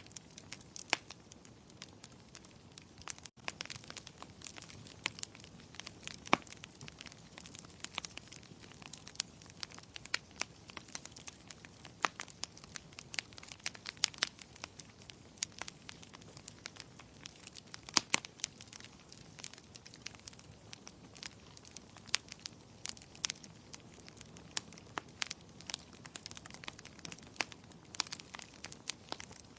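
Fire burning in a fireplace, crackling steadily with frequent irregular sharp pops over a low hiss.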